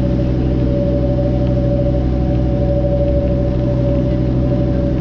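Motorboat engine running steadily: a loud, unbroken drone with one strong steady hum above lower rumbling tones, over water rushing past the hull.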